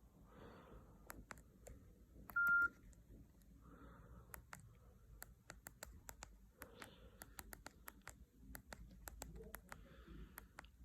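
Faint plastic clicks of a Nokia C2-01 mobile phone's keypad as its buttons are pressed again and again at an irregular pace, with one short key-tone beep a little over two seconds in.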